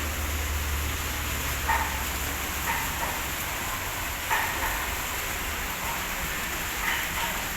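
Food sizzling steadily in hot oil as it fries, with a few short, sharper sounds from the pan now and then.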